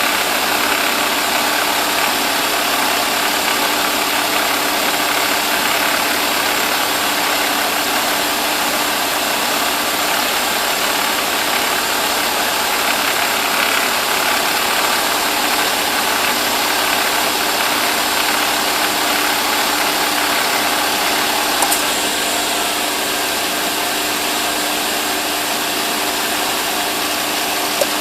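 Mercedes-Benz W124 engine idling steadily, with one sharp click about three-quarters of the way through as the AC compressor clutch cycles. The clutch will not stay engaged for more than about five seconds, a fault the owner traces to the AC pressure switch.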